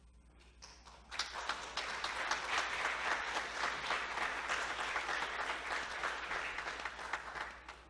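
Congregation applauding, starting about a second in and dying away near the end, over a steady low hum.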